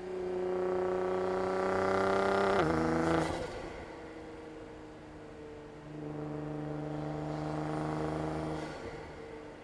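Nissan GT-R's twin-turbo VR38 V6 pulling under throttle, its pitch climbing slightly, then falling sharply about two and a half seconds in before the engine quietens. A second, steadier pull starts about six seconds in and eases off near the end.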